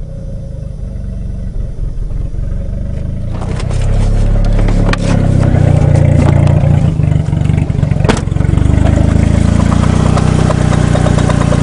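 Eagle Talon's four-cylinder engine idling steadily just after a hard start. It is muffled for the first few seconds, then louder and fuller from about three and a half seconds in, heard at the open engine bay, with a few sharp knocks along the way. The timing belt covers are rubbing slightly.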